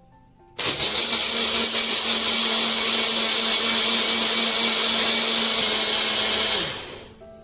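Small push-down personal blender running, blending yogurt and milk into lassi. The motor starts abruptly about half a second in, runs at a steady hum for about six seconds, then is released and winds down with a falling pitch near the end.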